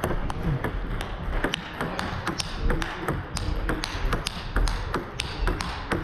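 Table tennis rally: a celluloid ball bouncing on the table and being struck by rubber-faced paddles, making quick sharp clicks several times a second in a fast, uneven rhythm.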